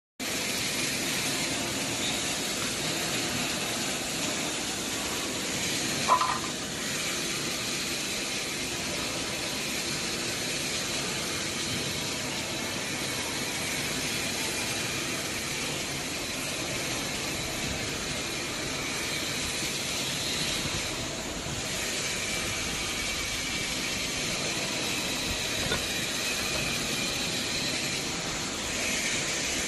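Steady machinery noise in a factory workshop, a continuous mechanical hum with hiss and a faint high whine, broken once by a brief knock about six seconds in.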